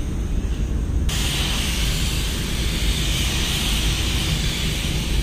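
Compressed-air paint spray gun hissing over a steady low rumble in a paint booth; the hiss turns suddenly louder about a second in.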